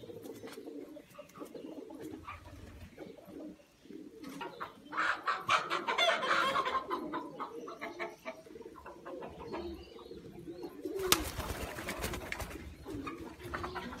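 Pouter pigeons cooing, a low wavering coo that runs on throughout. A louder, higher-pitched flurry comes about five seconds in, and a sharp knock about eleven seconds in is followed by a rustling hiss.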